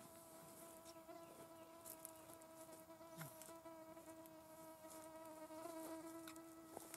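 Faint, steady whine of a small flying insect's wings close to the microphone: one held pitch with overtones, swelling slightly in loudness. A few faint ticks sound over it.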